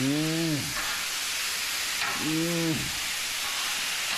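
Chicken thighs sizzling steadily on a hot flat-top griddle as they are turned and mixed with tongs in barbecue rub. A man's voice makes two short wordless sounds, one at the start and one about two seconds in.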